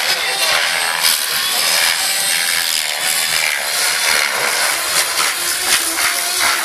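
Gaui X7 electric radio-controlled helicopter in flight, its Scorpion brushless motor and rotor blades making a steady buzzing whine whose pitch wavers up and down as it manoeuvres.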